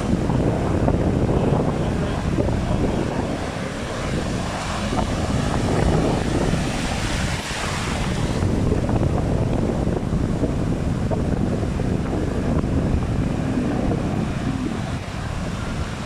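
Wind buffeting the microphone over surf, with a brighter rush of noise about halfway through.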